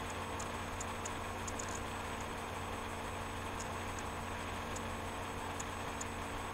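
Steady low hum and hiss, with faint scattered ticks.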